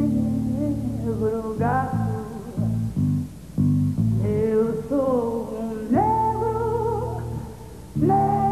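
Music for a stage dance routine: a gliding melody over bass and guitar, with the bass line breaking into short stabs in the middle.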